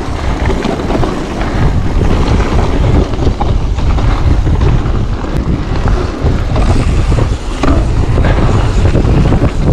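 Wind buffeting a GoPro action camera's microphone while riding an e-mountain-bike on a trail, with steady low rumble and occasional clicks and clatter from the bike over the ground.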